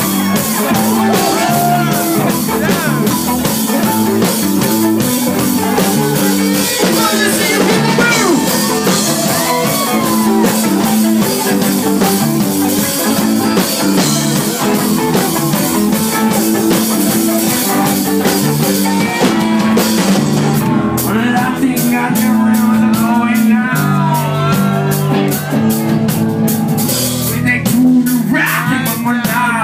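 Live rock band playing at full volume: guitars and a drum kit keeping a steady beat, with the cymbals dropping back about twenty seconds in.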